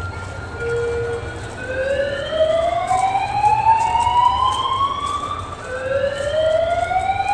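Several wailing sirens overlapping, each rising slowly in pitch over a few seconds and then starting again, with one sweeping down, sounded during an earthquake drill.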